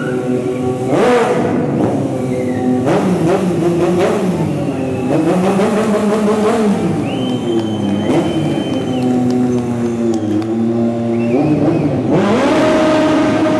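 Stunt motorcycle engines revving hard, their pitch repeatedly rising and falling as the throttle is blipped and held.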